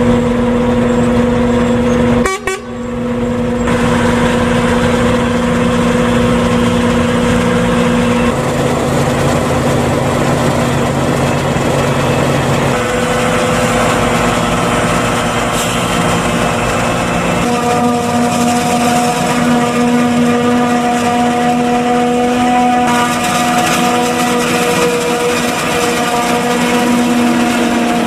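Claas Jaguar 870 forage harvester running under load while chopping corn, a steady whine of its engine and chopper drive, mixed with a Ginaf agrotruck driving alongside. There is a brief drop-out about two seconds in, and the pitch of the steady tones shifts a few times.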